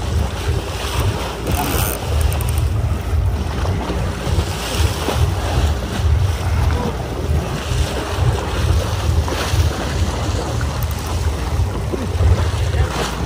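Wind buffeting the microphone on a boat at sea, a loud uneven low rumble over the wash of waves and boat noise.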